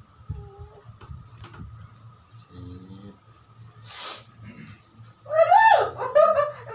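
A person crying out in pain: a loud, high-pitched wailing cry that starts about five seconds in and goes on into sobbing. It comes after a few faint sounds and a brief hiss.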